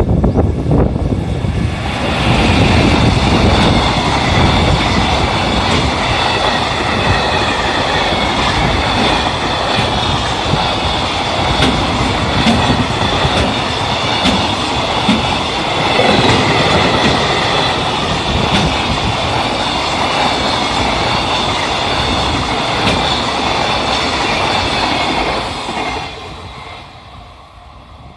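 A freight train hauled by an EF210 electric locomotive passing close by. A heavy low rumble comes first, then the wagons' wheels clatter over the rail joints with a steady high ring for over twenty seconds. The sound falls away suddenly about 26 seconds in as the last wagon goes by.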